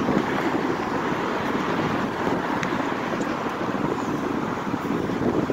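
City street traffic, cars idling and passing at an intersection, with wind rumbling on the microphone.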